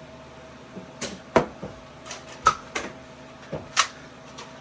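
A run of about eight sharp, uneven clacks and knocks from Nerf blasters being worked and fired and foam darts striking, the loudest about a second and a half in, halfway, and near the end.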